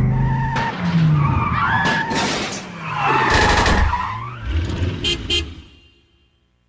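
A logo's soundtrack made of cartoon sound effects: skidding screeches and sliding whistle-like tones over noisy blasts. It dies away about six seconds in.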